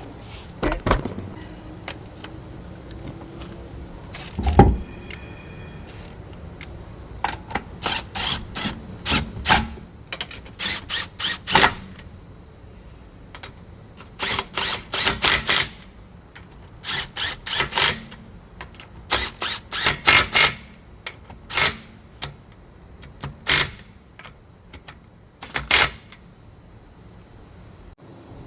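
A wheel thumps onto the hub, then a socket ratchet clicks in short bursts, repeated many times, as the lug nuts are run down onto the studs.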